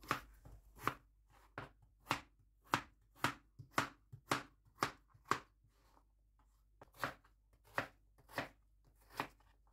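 Kitchen knife cutting a peeled raw potato into small cubes on a plastic cutting board: a string of crisp chops, about two a second, with a short pause about halfway through.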